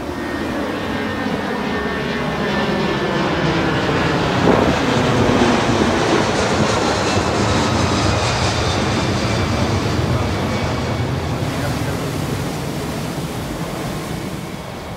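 Jet airliner flying overhead: a rushing engine noise that builds over the first few seconds, holds, and eases off near the end, with a faint falling whine.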